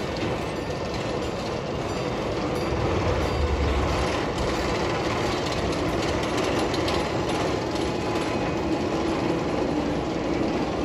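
Narrow-gauge coal-fired steam locomotive No. 22 running slowly into the station with its passenger cars, a steady mix of engine and wheel-on-rail noise.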